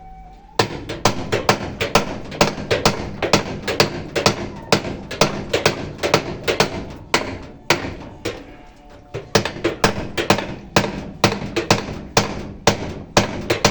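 Repeated hammer blows on a Stilson pipe wrench, about three a second with a short pause partway through, driving a nut tight on a washing machine until it no longer has play.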